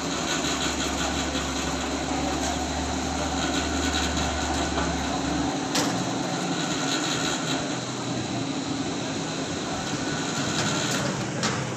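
Petrol station fuel dispenser running steadily as it pumps petrol, a continuous mechanical hum and hiss. A low drone beneath it drops out about halfway through, and there is a light click shortly after.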